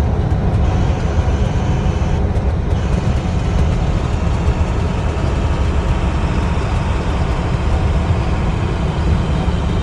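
Steady low rumble of a box truck's engine and road noise heard from inside the cab while driving.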